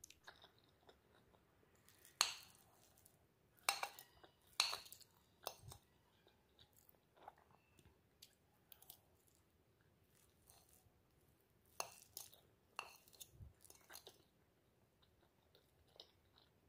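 Faint, irregular crunches and sharp clinks, with the loudest at about two, four, five, twelve and thirteen seconds in: the crisp fried potato and zucchini tortilla being cut and eaten.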